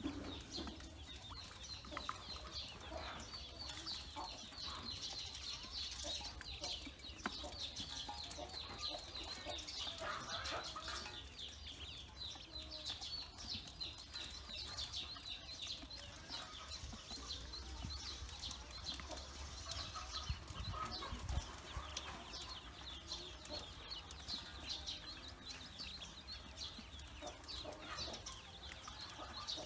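A flock of newly hatched Pekin ducklings peeping constantly, many short high calls overlapping, with light clicks of their bills pecking feed in an aluminium basin.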